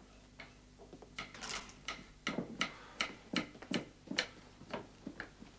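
Kitchen knife chopping on a chopping board: a run of sharp knocks, about two or three a second, starting about a second in.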